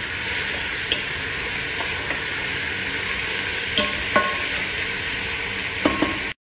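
Sliced onions sizzling in olive oil and ghee in a metal pot as they soften, stirred with a wooden spatula that knocks against the pot several times. The sound cuts off suddenly near the end.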